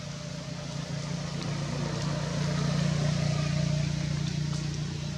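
A low, steady engine hum that grows louder about halfway through and eases off near the end.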